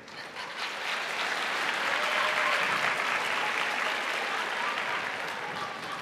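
Large audience applauding in a big hall. The clapping builds over the first second and then holds steady.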